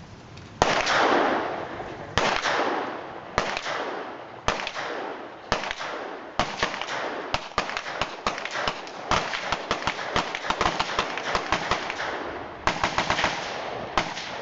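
Gunfire at an outdoor range: five single shots roughly a second apart, each with a ringing echo, then rapid fire, with many shots in quick succession for several seconds and a short fast string near the end.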